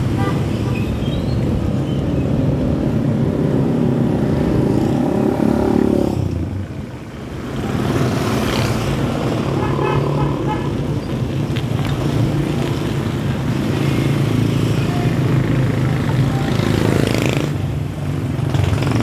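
Street traffic of motorcycles and motorized tricycles, their small engines making a steady drone. The sound fades briefly about seven seconds in.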